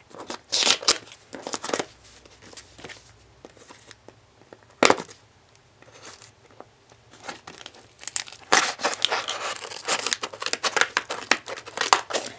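A plastic mailer and small cardboard box being cut with scissors and torn open: bursts of crinkling and tearing in the first two seconds, one sharp crack about five seconds in, and a long stretch of steady crinkling and tearing from about eight seconds on.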